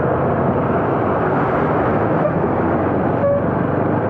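Motorcycle riding through standing floodwater: a steady rush of wind, tyre spray and engine noise. A brief high note sounds about three seconds in.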